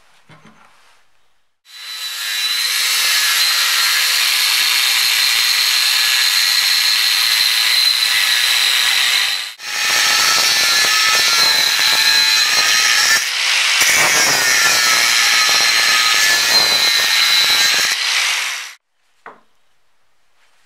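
Angle grinder with an abrasive disc cutting into the steel of an old rusty axe head: a steady high whine over a harsh grinding hiss. It starts about two seconds in, breaks off for a moment around the middle, and stops suddenly a couple of seconds before the end.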